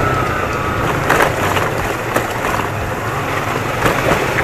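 Small motorcycle engine running at low speed with road and wind noise picked up by a camera mounted on the bike, the engine note easing down in the first second. A few sharp clicks or knocks sound about one, two and four seconds in.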